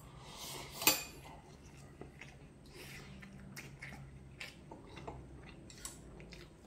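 A slurp from a spoon, then a sharp clink of a metal spoon against a ceramic bowl just under a second in, the loudest sound. Lighter clinks and scrapes of the spoon and chopsticks in the bowl follow while eating ramyun.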